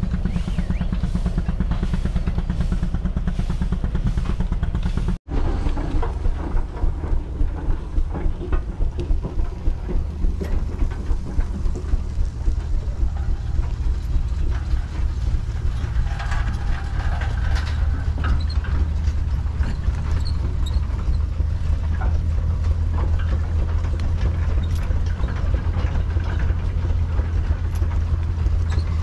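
Steam traction engine running, its exhaust chuffing in an even beat of about three to four a second for several seconds after an abrupt cut about five seconds in, over a steady low rumble.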